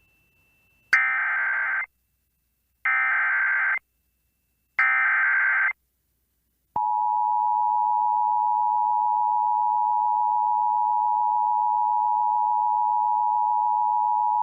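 Emergency Alert System broadcast on NOAA Weather Radio: three bursts of warbling SAME digital header tones, about a second each with a second of silence between them, then a steady alert tone starting about seven seconds in. This is the data header and attention signal that precede a new urgent weather message, here a severe thunderstorm warning.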